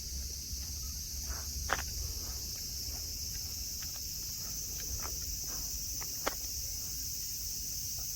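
A chorus of cicadas droning steadily at a high pitch. A few short clicks or snaps sound over it, the sharpest about 1.7 s and 6.3 s in.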